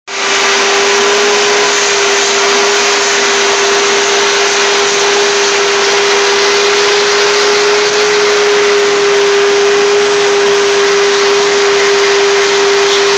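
Shop-vac running steadily: an even rush of air with one steady humming tone through it, as its hose nozzle is drawn through a cat's fur.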